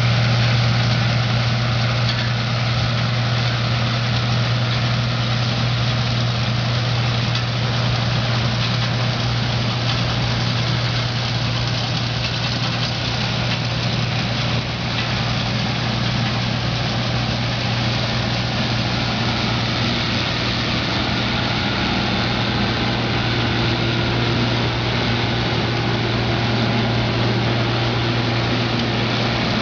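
Case IH combine harvester running steadily while harvesting peas through a Sund pickup header. Its engine and threshing machinery keep up a constant loud hum with a strong low tone and a rushing noise over it.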